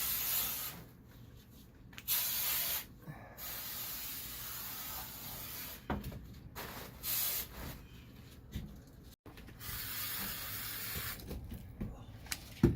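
Spray foam gun hissing in a series of bursts, some a couple of seconds long, as foam is sprayed to reseal holes in old spray foam insulation.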